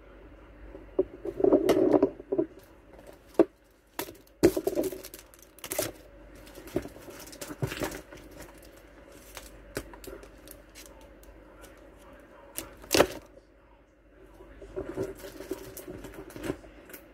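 Plastic-wrapped merchandise being handled: scattered sharp clicks and crinkles of cellophane and hard plastic, several seconds apart, the loudest about 13 seconds in.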